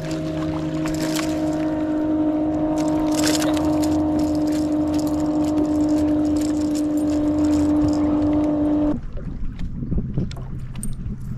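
Steady electric hum of a bass boat's trolling motor, with wind and water noise over it. The hum cuts off abruptly about nine seconds in, leaving a quieter, rougher background with a lower hum.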